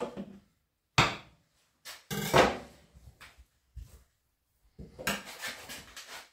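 Knocks and clatter of a knife and a rolled pork belly being handled and set down on a wooden cutting board: a few separate knocks, the loudest about two seconds in, then a run of clattering near the end.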